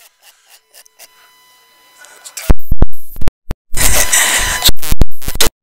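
Faint for a couple of seconds, then loud clipped pops broken by dead-silent dropouts and harsh distorted crackle from about two and a half seconds in: an audio feed cutting in and out and overloading.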